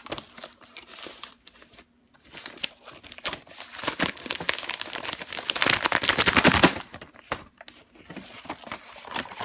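Packaging being torn open and crinkled by hand while a mailed package is unwrapped: irregular rustling and crackling, loudest a little past the middle.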